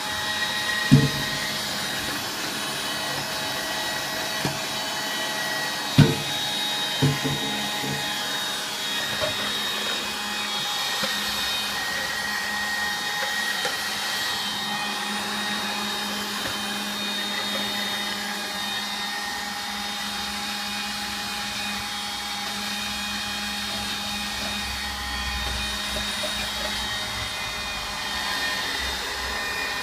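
Electrolux Rapido cordless vacuum cleaner running steadily, a motor whine over a rush of air, with a few sharp knocks about a second in and again around six and seven seconds in.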